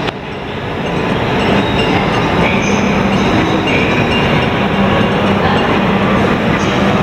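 Max Toki double-decker Shinkansen train moving along the platform, a steady loud running noise of wheels and motors that grows a little in the first second, with faint high squeals now and then.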